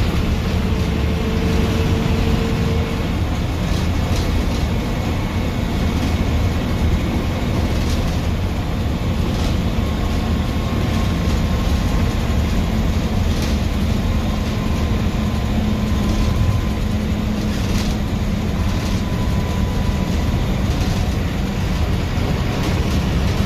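Diesel bus heard from inside its cab at highway speed: a steady, loud engine and road rumble, with occasional short knocks and rattles from the cab.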